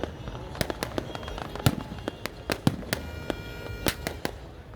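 Fireworks going off: a quick, irregular string of sharp bangs and cracks, with a steady high tone lasting about a second just past the middle.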